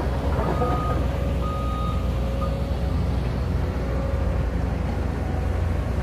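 Reversing alarm beeping on heavy construction equipment, a steady pulse of beeps about once a second that fades out over the first few seconds, over the low, steady rumble of a diesel excavator and dump truck working a rubble pile.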